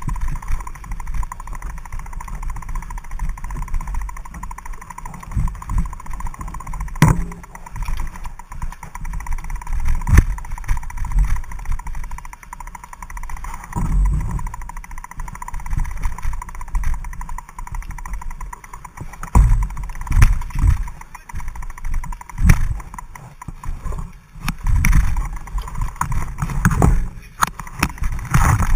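Mountain bike pushed uphill on foot over a muddy trail: irregular low thumps and rumble from footsteps and the jolting bike, with a few sharp clicks and rattles from the bike.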